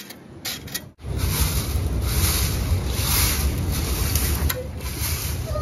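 Long-handled straw broom sweeping cut grass across bare dirt, over a steady rumble of wind on the microphone. About a second in the noise jumps from faint scraping to a steady, much louder level.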